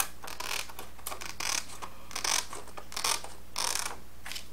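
Small scissors snipping through a sheet of acetate, trimming a narrow strip off its edge: a string of short, crisp snips, roughly one every half second to second.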